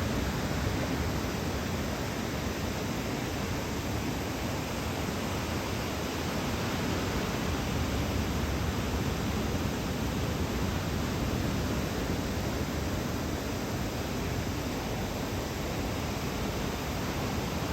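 Steady, even roar of ocean surf as typhoon swell breaks along the beach.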